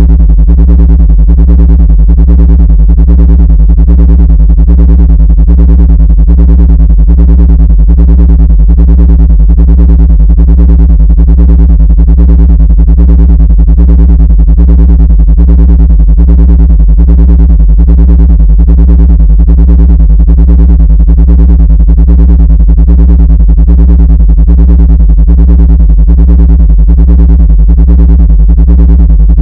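Loud, steady synthesizer drone: a deep bass tone with evenly spaced overtones above it, pulsing in an even rhythm throughout, meant as an ant-repelling sound.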